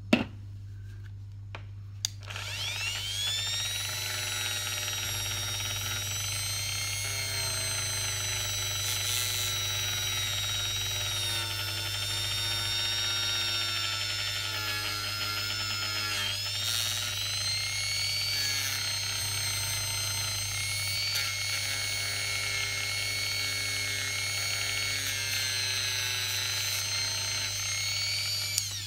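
Small electric motor of a handheld hobby tool: a sharp click at the start, another click about two seconds in as the motor spins up with a rising whine, then a steady run with a brief dip in speed about halfway, switching off just before the end.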